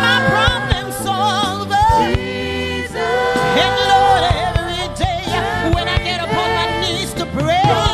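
Live gospel music: a woman's lead voice sings long melismatic runs with heavy vibrato into a microphone, over a live band, with backing singers.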